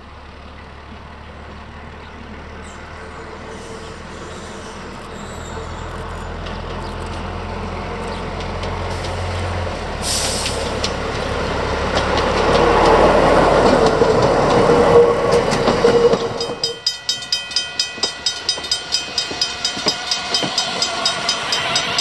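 Vulcan railcar Rm 51's diesel engine running and growing louder as it approaches and passes close by, with a brief hiss about ten seconds in. Then a level-crossing bell rings in quick, even strokes, about two and a half a second, as the railcar runs over the crossing.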